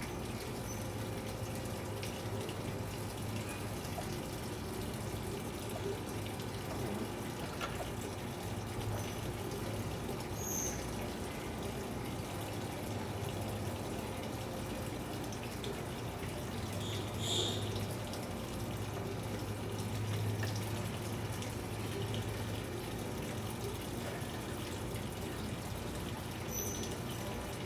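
A thread die being turned by hand down a 9/16-18 bolt to chase its threads, heard as faint scraping with a few short squeaks, over a steady low hum.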